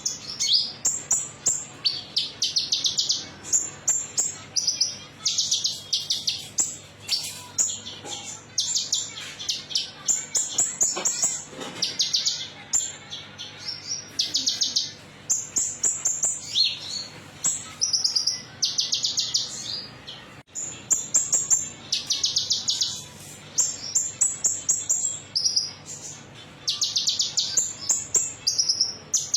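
Kolibri ninja (Van Hasselt's sunbird) singing: short bursts of rapid, high-pitched trilled notes, one after another in quick succession.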